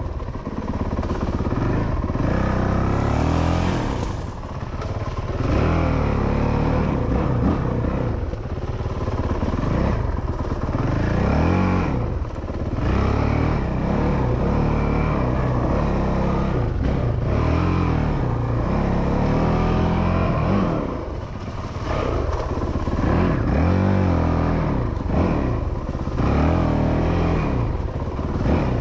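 2019 Honda CRF450L dirt bike's single-cylinder four-stroke engine being ridden hard, revving up and falling back again and again as the throttle is worked, every second or two. It eases off briefly about four seconds in and again around twenty-one seconds.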